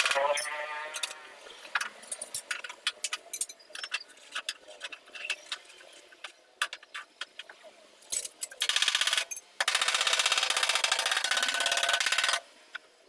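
Panel beating on sheet-metal bodywork: a run of rapid strikes, then scattered single knocks for several seconds, then fast, continuous runs of metal strikes from about eight and a half seconds in that stop abruptly near the end.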